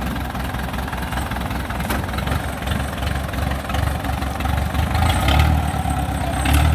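Diesel engine of a Kubota DC70 combine harvester running steadily, its low rumble growing louder about five seconds in.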